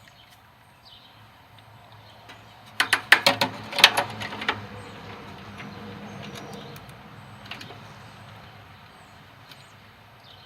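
Hand tools clinking as spark plugs are fitted: a quick run of sharp metallic clicks and clinks about three to four seconds in, then a few faint ticks, over a low steady hum.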